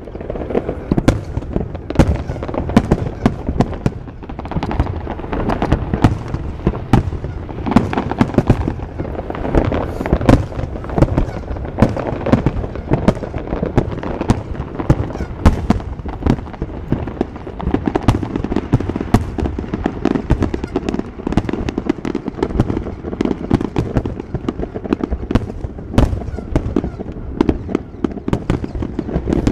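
Aerial fireworks shells bursting in a dense, unbroken barrage, several bangs a second throughout.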